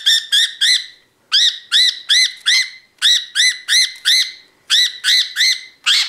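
Budgerigar squawking over and over while restrained in the hand for beak filing: short harsh calls that rise and fall, about three or four a second, in runs broken by brief pauses.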